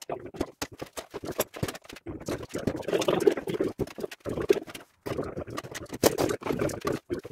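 Metal parts and tools being handled while a tow-behind tine dethatcher is assembled: an irregular run of knocks, clinks and clatters, busiest about three and six seconds in.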